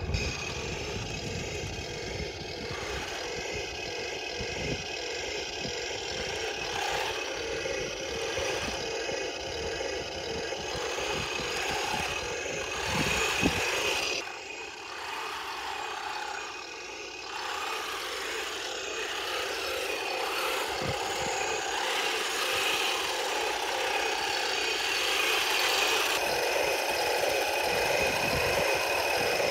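Simulated tank engine sound from a 1:16 RC tank's sound unit, running steadily, quieter for a few seconds about halfway through and a little louder toward the end.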